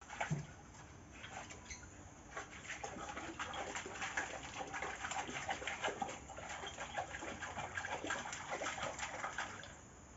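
Thai ridgeback dog splashing water with its muzzle in a shallow terracotta basin: a run of irregular wet splashes and slaps that stops about half a second before the end.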